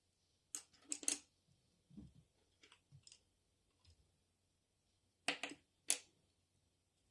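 Tombow coloured pencils clicking against each other and the desk as pencils are picked up and put down: a cluster of sharp clicks about a second in, a few softer taps, then two more sharp clicks near the end.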